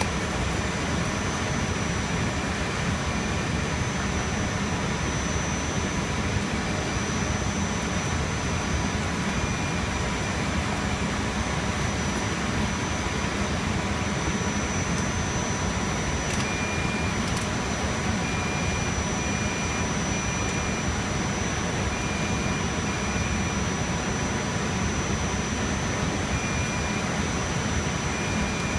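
Rack-server cooling fans running with a steady, loud whoosh and a thin, high, steady whine above it.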